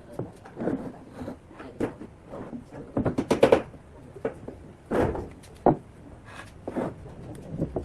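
Irregular knocks and clatters of objects being handled, with a quick run of several sharp strikes about three seconds in and two heavier thumps about five seconds in.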